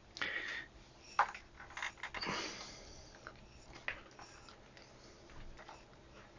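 Faint handling noise of test probes and a multimeter: a few light clicks and knocks, the clearest about a second and two seconds in, with soft rustling between them.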